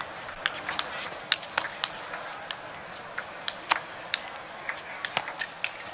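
Table tennis rally: the celluloid ball clicking off the table and the players' rackets in quick, irregular succession, two to three hits a second.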